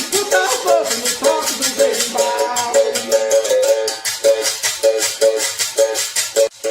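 Berimbau played in a steady rhythm, its plucked-string notes repeating over the fast, even shaking of a rattle, with a brief break near the end.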